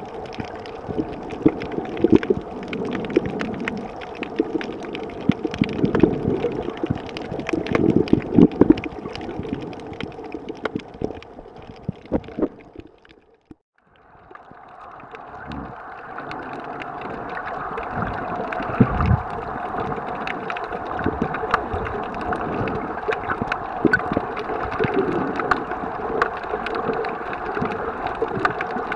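Underwater ambience picked up by a camera: a muffled, steady water hum full of small clicks and crackles. It drops out briefly about halfway through, then returns.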